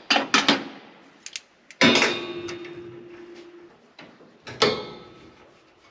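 Metal-on-metal clanks and knocks from tools and parts while working loose the bolts and bushings of a combine's concaves. There are a few quick knocks at first, then one loud strike about two seconds in that rings on for nearly two seconds, and another clank later.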